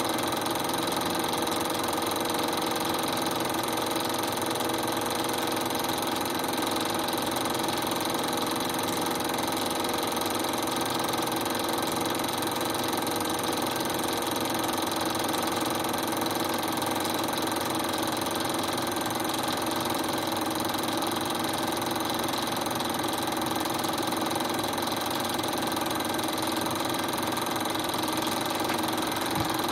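Film projector running: a steady mechanical whirr and clatter that does not change.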